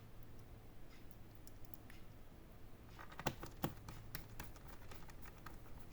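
Light clicks and taps from laptop parts being handled and fitted together, with two sharper clicks a little past halfway followed by a run of small clicks.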